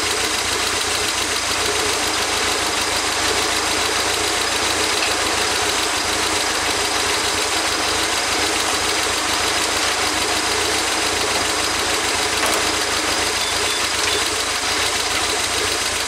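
The 1992 Toyota MR2's 2.0 L turbocharged four-cylinder engine idling steadily. The car was brought in for rough idle and a misfire.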